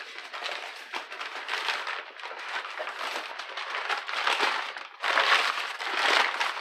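Brown kraft packing paper crinkling and rustling as a paper-wrapped clutch pressure plate is pulled out of a cardboard box, louder from about five seconds in.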